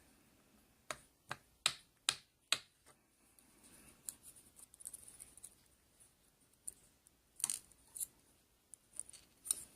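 Small sharp metal clicks and taps from handling the parts of a disassembled padlock: pins, tweezers and the lock body. A quick run of about five clicks comes first, then scattered clicks and light scraping.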